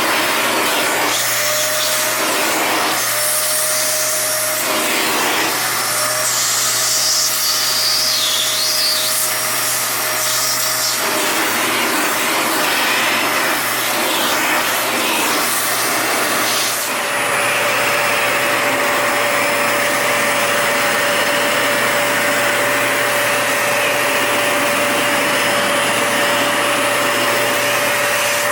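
Toshiba VC-S960 vacuum cleaner running with a steady hum and hiss. Its sound shifts back and forth through the first ten seconds or so, then about seventeen seconds in it settles into a steadier, brighter whine.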